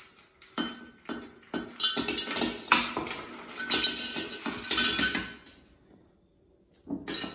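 Ice cubes tipped from a bowl into a glass pitcher, clinking and clattering against the glass for about five seconds before stopping.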